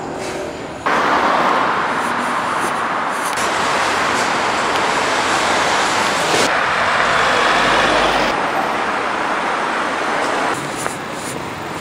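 City street traffic noise: a steady rush of passing cars and buses that jumps abruptly louder about a second in and changes character suddenly a few more times.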